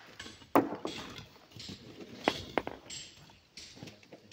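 A long steel bar knocking and scraping against stone blocks as the rocks are levered apart. There are a few sharp clinks: the loudest about half a second in, and two more close together a little past the two-second mark.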